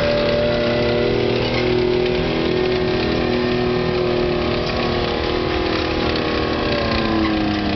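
Tracked armoured vehicle's engine running steadily under heavy load as it pulls a weight-transfer sled.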